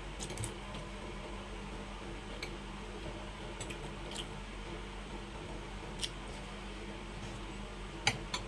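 Eating sounds: scattered light clicks of cutlery against a plate, about half a dozen, the sharpest near the end, over a steady low background hum.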